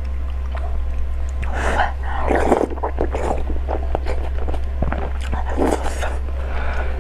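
A person chewing and biting food, with many small mouth clicks and a few louder bites about one and a half, two and a half and five and a half seconds in.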